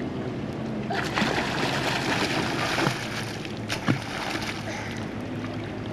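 Water splashing as a child in a life jacket swims, a rush of splashing starting about a second in, with a couple of sharper splashes a little later.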